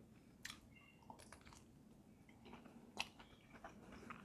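Faint close-up chewing of sausage: a few soft wet mouth clicks and smacks, the sharpest about three seconds in.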